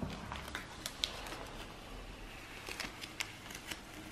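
Clear protective plastic film being peeled off the glass of a new camper-van window: soft crackling with scattered small clicks as the film comes away.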